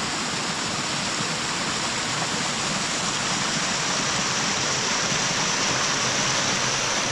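Steady rain falling on the cloud forest: an even, unbroken rushing hiss.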